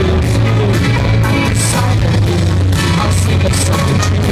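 Live rock band playing an instrumental passage between sung lines: two electric guitars, bass guitar and a drum kit, with a steady bass line and regular drum and cymbal beats.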